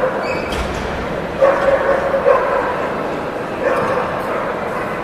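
A dog giving short, high yipping barks several times, over the background chatter of a large hall.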